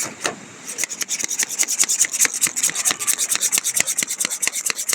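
Rapid scraping strokes of a spoon or whisk beating coffee in a cup to froth it for a cappuccino, about ten strokes a second, starting under a second in and going on without a break.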